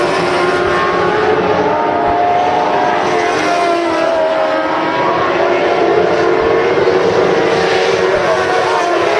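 Engines of several Modlite race cars running at racing speed on a dirt oval, their overlapping engine notes drifting up and down in pitch as the pack goes around.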